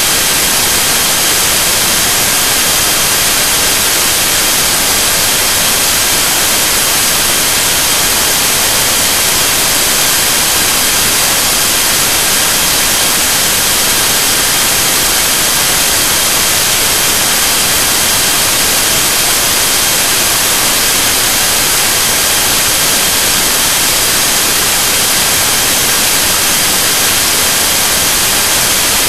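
Loud, steady hiss of static with a faint steady high whine running through it, unchanging throughout.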